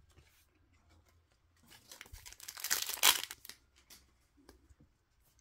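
A 2023-24 Upper Deck MVP hockey card pack's wrapper being torn open: a crinkly rip lasting about two seconds and loudest about three seconds in, between faint rustles and small clicks.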